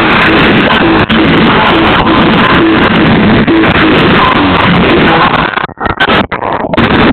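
Music played very loud through car audio systems, dense and near full level. It breaks up into several short dropouts in the last second and a half.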